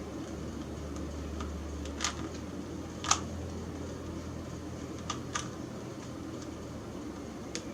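A Rubik's Cube being turned by hand: scattered plastic clicks as its layers are twisted, about five in all, the sharpest about three seconds in. A steady low hum lies underneath.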